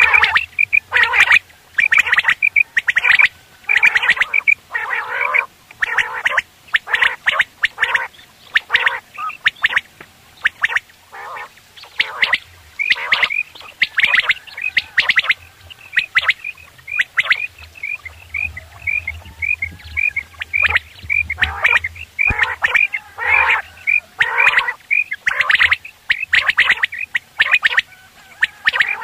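Caged quail calling nonstop: quick runs of short, high, chirping notes overlap with harsher, lower squawking calls.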